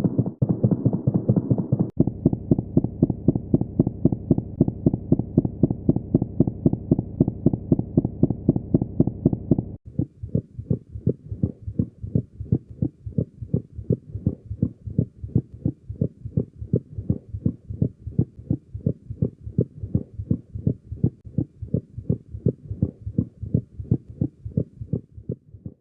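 Recorded heart sounds: a steady run of heartbeats played as a series of different recordings that change about two seconds in and again about ten seconds in. In the middle recording a steady hum sits under the beats. The last recording is quieter, with beats coming closer together.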